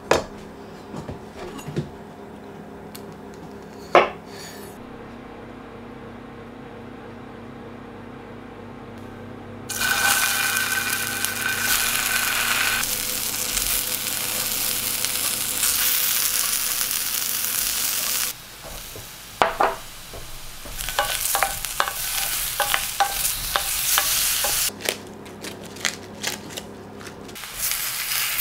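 Halved boiled baby potatoes and carrot pieces pan-frying in a stainless steel frying pan. For about the first ten seconds it is quieter, with a few sharp knocks; then a loud, steady sizzle starts suddenly. In the second half the sizzle drops back and comes again in stretches, with bursts of clattering knocks, and it is loud again near the end.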